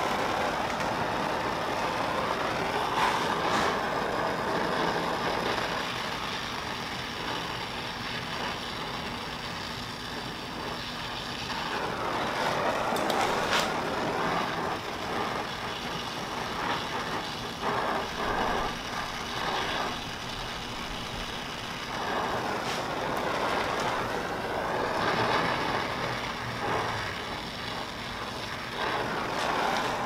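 Oxy-acetylene brazing torch with a small zero tip burning with a steady hiss while a copper refrigerant line on a window air conditioner is brazed. The hiss swells and dips slightly.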